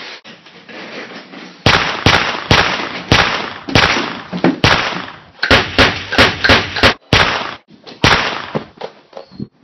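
Gunshot sound effects: a rapid, irregular string of more than a dozen sharp bangs, each dying away quickly, starting about two seconds in and stopping near the end.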